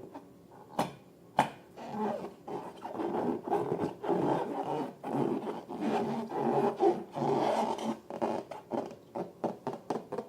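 Rubber balloons rubbed and squeezed by hand, a continuous rubbing and scraping sound, with two sharp clicks about a second in and a run of quick taps near the end.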